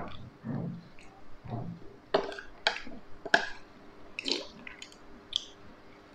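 Wet chewing and slurping of spoonfuls of star apple (caimito) in milk, with a run of short sharp mouth clicks and smacks about two to three and a half seconds in.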